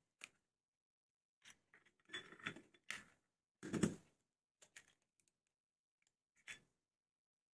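Eggs being cracked on a glass bowl: a scatter of short taps, knocks and cracks of eggshell against glass, the loudest about four seconds in, with the shell being pulled apart over the bowl.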